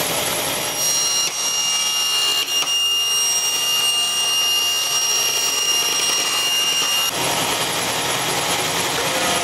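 Table saw running at full speed and ripping a Kydex plastic sheet. The cut adds a high, steady whine for about six seconds before the blade runs free again.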